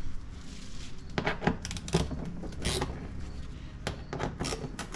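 Scattered metallic clicks and clinks, half a dozen or so at uneven intervals, of a socket wrench and its fasteners being worked on the car's underbody access panel.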